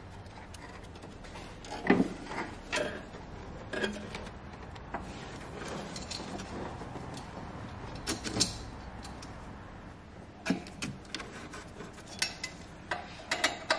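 Scattered irregular clicks and knocks as the EGT sensor's threaded fitting is worked and tightened into its bung on the dump pipe. The loudest knocks come about two seconds in and around eight seconds in, with a quick cluster near the end.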